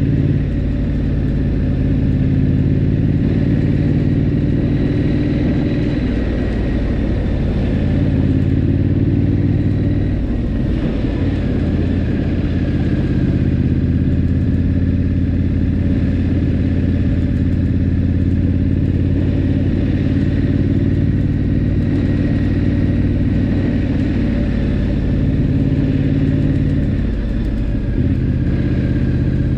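Triumph Scrambler 900's parallel-twin engine running at a steady cruise, mixed with wind and road rush. The engine note briefly drops about ten seconds in and again near the end.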